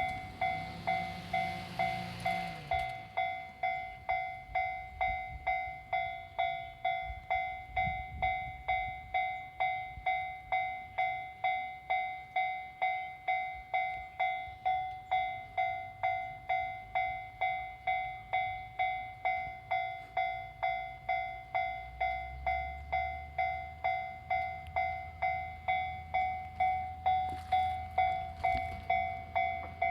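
Japanese level-crossing warning alarm ringing steadily, an electronic two-tone ding about twice a second. There is a brief rushing noise with a falling tone in the first few seconds, and a low rumble comes in about two-thirds of the way through.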